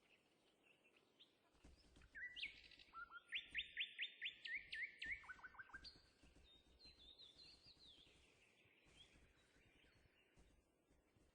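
A songbird singing: a loud run of rapid trills and quickly repeated down-slurred notes about two seconds in, then softer warbling that fades away.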